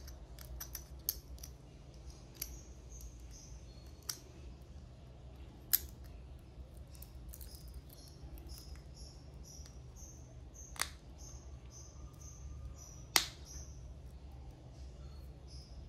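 Small sharp clicks and taps from a stainless-steel watch and its link bracelet being handled while a button-cell battery is fitted and the caseback is pressed on. Scattered single clicks, the loudest about thirteen seconds in.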